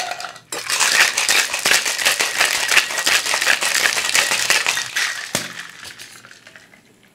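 Ice cubes rattling hard inside a closed stainless steel cocktail shaker being shaken with liquid to chill the drink, after a brief clatter of ice going into the tin at the start. The rattling runs for about five seconds, then comes one sharp knock and the sound dies away.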